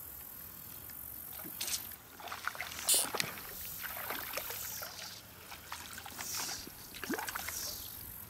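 A small hooked brown trout splashing and thrashing at the surface of shallow creek water, in a string of irregular splashes and sloshes, the loudest about three seconds in.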